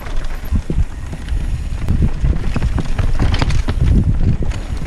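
Mountain bike riding fast down a rocky dirt singletrack: tyres rolling and bumping over rocks and roots, with the bike rattling at each hit and wind rumbling on the microphone.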